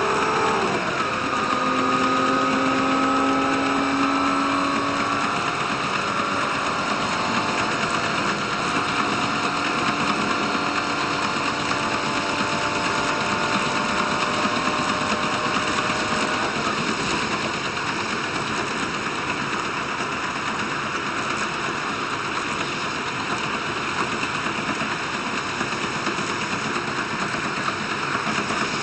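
Diesel train running along the track: a steady running rumble with whining engine and drive tones that shift in pitch at first and fade out about halfway through.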